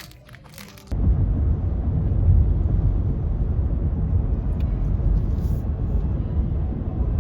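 Loud, steady low rumbling noise that starts suddenly about a second in.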